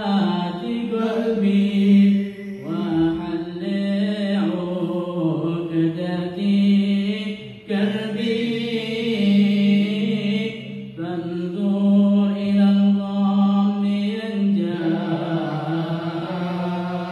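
A man's solo voice chanting Islamic devotional verses into a microphone, heard through a PA loudspeaker. Long, held, ornamented phrases with short breaks for breath between them.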